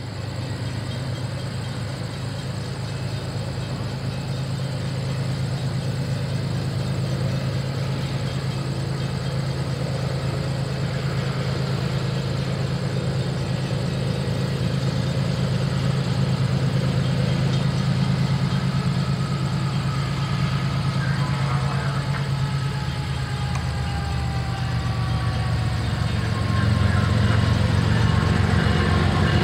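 Diesel engine of an approaching CN freight locomotive: a steady low rumble that grows slowly louder as the train nears. In the last third, faint thin whines slide slowly lower.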